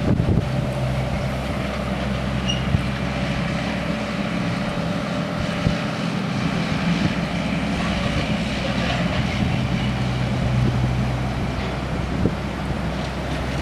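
A steady low engine hum running without a break, with no clear change in pitch or loudness.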